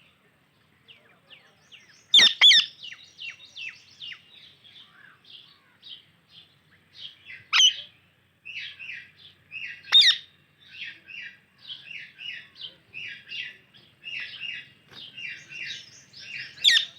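Indian ringneck and alexandrine parrots chirping: a steady run of short chirps, two or three a second, broken by a few loud, sharp shrieks, about two, eight and ten seconds in and near the end.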